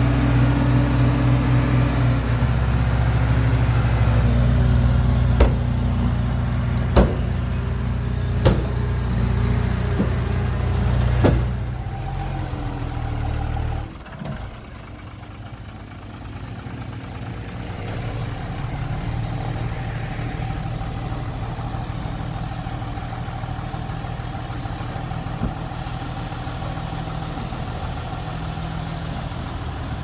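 A heavy vehicle's engine running, loud at first with a few sharp knocks, then falling away about twelve to fourteen seconds in to a quieter steady idle.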